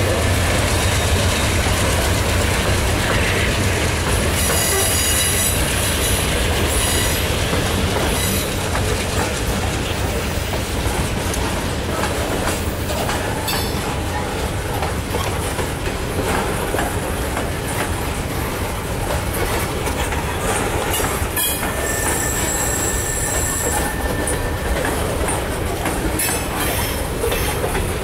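Mixed freight train passing close by. The trailing GE Dash 9-40CW diesel locomotive's engine hum is heard at the start, then freight cars roll by steadily with brief high-pitched wheel squeals about five seconds in and again a little past twenty seconds.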